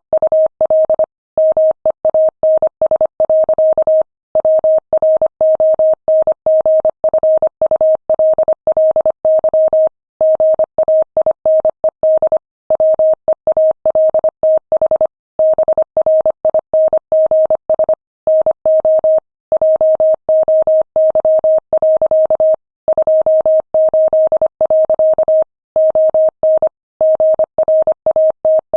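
Morse code sent as a single steady beeping tone at 25 words per minute: rapid runs of dots and dashes, broken by short pauses between words.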